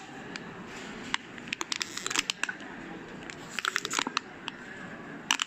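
Crinkly pineapple-shaped pet toy being bitten, giving irregular clusters of sharp crackles and crinkles.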